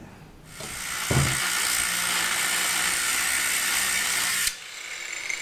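A power tool running with a hissing, grating noise for about four seconds, with a knock about a second in, then cutting off suddenly.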